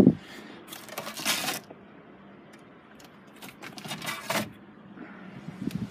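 Handling noise with light metallic clinks, in two short rustling bursts, one about a second in and another around four seconds.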